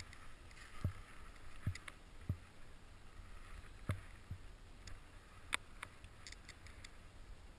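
Faint, deep knocks about once a second as a skier moves off on skis and poles, picked up by a head-mounted camera. A few sharp clicks follow about two-thirds of the way through.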